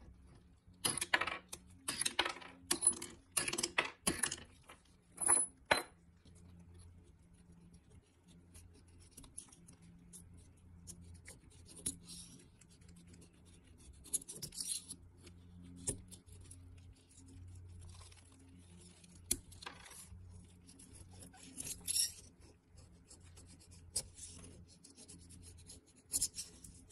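Steel wing nuts and washers clicking and clinking as they come off a plastic tire mold and are set down, several sharp clicks over the first six seconds. After that, a razor blade scrapes in short strokes, prying hardened black overflow off the mold's plastic face.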